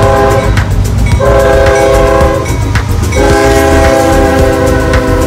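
CSX freight train's lead diesel locomotive passing close by, sounding its multi-chime air horn in repeated blasts: one ending about half a second in, a long one from about one to three seconds, and another starting about three seconds in. Under the horn, a steady low engine rumble and wheels clicking over the rails.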